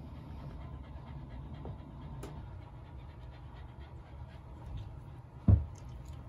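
Shiba inu panting steadily with his mouth open, the dog's relaxed, smiling pant. A single loud thump about five and a half seconds in.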